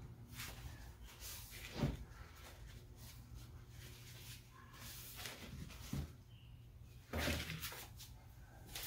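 Knocks and rustles of hands handling a particle-board dresser drawer and a paper towel, over a steady low hum. There is a sharp knock about two seconds in, another about six seconds in, and a louder cluster of knocks near the end.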